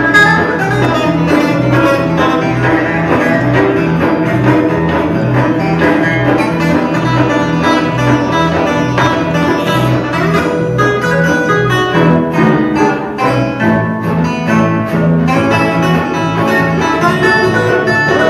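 Live country-Western string band playing an instrumental fiddle tune: fiddle over strummed acoustic guitars, with electric bass keeping a steady beat.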